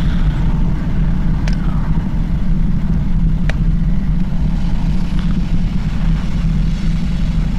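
A steady low rumble, with two faint clicks, one a little over a second in and one about three and a half seconds in.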